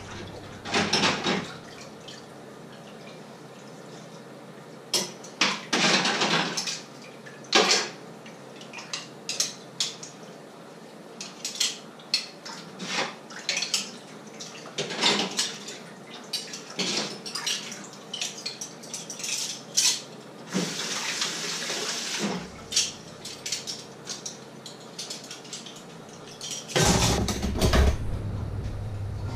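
Dishes, pans and cutlery clinking and clattering in a kitchen sink as they are washed by hand, in many short, irregular knocks, with water running for a second or two about two-thirds of the way through.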